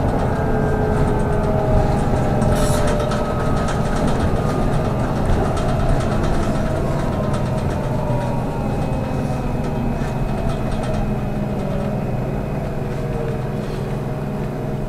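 Inside a moving trolleybus: the electric traction motor's whine slowly falls in pitch as the trolleybus slows, over a steady low hum and road rumble. A brief click comes about two and a half seconds in.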